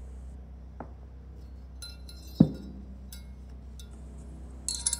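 Thin steel lock ring and retainer ring clinking against each other and against the metal of a Cessna 150 nose gear strut as they are handled and fitted onto the strut tube. There is one sharp knock about halfway through and a quick run of light clinks near the end, over a steady low hum.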